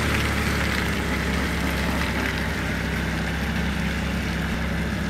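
Off-road 4x4's engine running steadily at idle, its pitch holding level throughout.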